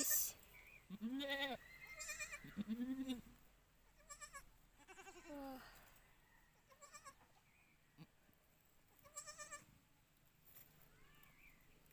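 Goats bleating: a series of about eight short calls, each rising then falling in pitch, a second or two apart, from a doe in labour and her newborn kids.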